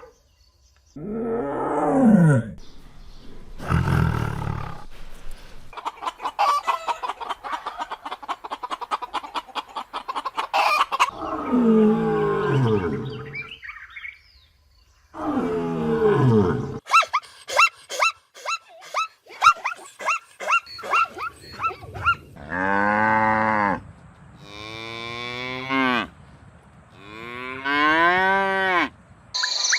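A run of separate animal calls, one after another with short breaks, cattle mooing among them. Some are long calls that slide up and down in pitch; others are fast repeated pulses.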